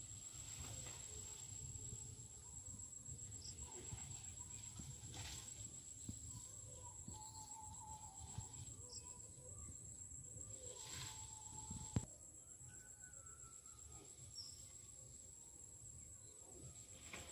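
Insects trilling in one steady, unbroken high-pitched tone over faint low rumble. A sharp click sounds once about twelve seconds in.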